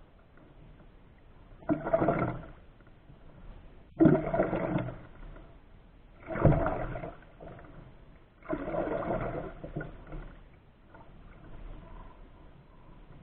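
Paddle strokes pulling a canoe through calm water: four splashing swishes, one about every two to two and a half seconds, as a double-bladed paddle dips on alternate sides.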